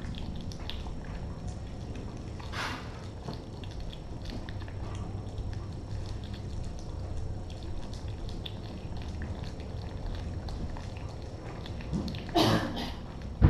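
Cats eating wet food off a plate: many small, wet chewing and lapping clicks over a steady low hum, with one short, louder sound near the end.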